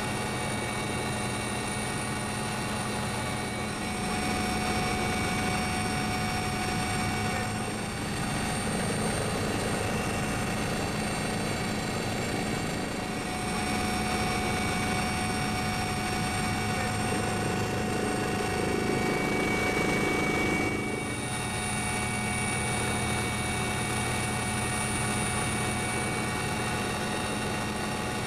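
Helicopter running steadily, heard from aboard: a constant rotor and turbine drone with steady high whining tones over it.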